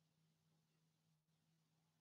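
Near silence: faint hiss with a steady low hum.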